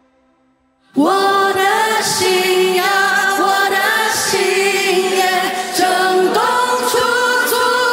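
Near silence for about a second, then a group of female voices comes in together all at once, singing in harmony.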